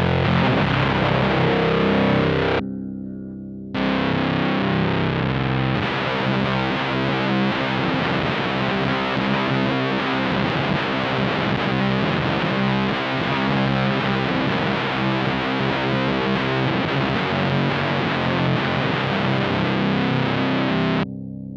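Electric guitar playing a heavy riff through a fuzz pedal into a '69 Laney Supergroup amp. The fuzz drops back for about a second early on, leaving the low notes ringing, then the riff comes back in full and stops abruptly near the end.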